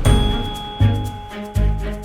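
Background music with a steady beat and bright bell-like tones.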